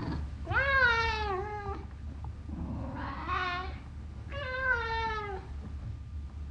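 A cat meowing three times, each meow about a second long. The first rises and then falls in pitch, and the last two slide downward, over a steady low hum.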